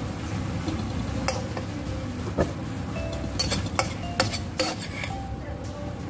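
Stainless-steel slotted spatula scraping and tapping against a wok while stirring onions and peppers in a sweet-and-sour sauce, over a low sizzle. The sharpest scrapes and clinks come in a cluster a little past the middle.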